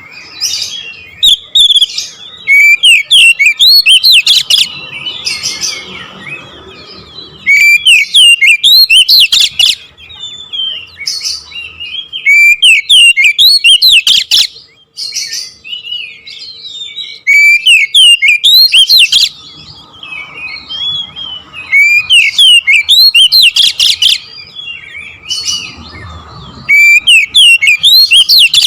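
Oriental magpie-robin (kacer) singing: loud phrases of rapid, sharp chirps and whistles, each about two seconds long and repeated roughly every five seconds, with softer twittering between them. These are the loud bursts Indonesian bird-keepers call "nembak".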